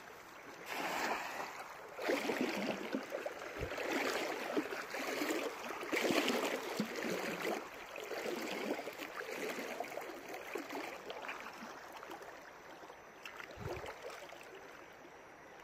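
River water splashing and sloshing around a person wading through it, uneven and strongest in the first half, dying down over the last few seconds.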